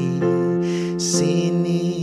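Electronic keyboard playing sustained piano chords for a slow ballad chorus, with a man singing along.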